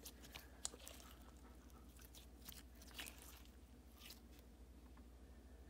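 Faint wet clicks and squishes of Nickelodeon slime being worked in the hands, a few scattered soft pops.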